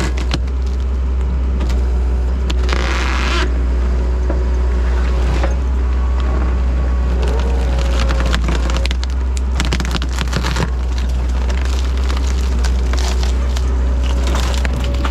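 Compact track loader's diesel engine running steadily under load while its hydraulic tree shear bites into an oak trunk, with repeated sharp cracks and splintering of wood. A short hissing rush comes about three seconds in.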